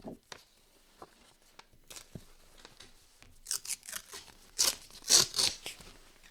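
Paper being handled close to the microphone: a few light taps and rustles, then from about three and a half seconds in a run of short, crisp rasping strokes, loudest about five seconds in.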